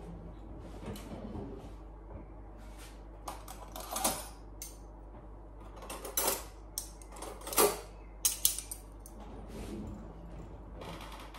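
Irregular clicks, taps and light knocks of things being handled on a kitchen counter, with a few sharper knocks in the middle and second half.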